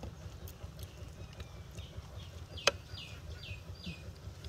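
A single sharp click a little after halfway, followed at once by a quick run of about five short falling bird chirps, over a low steady rumble.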